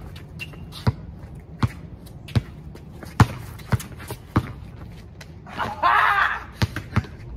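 Basketball dribbled on a hard court: sharp single bounces about every three-quarters of a second, with a brief louder rasping noise about six seconds in.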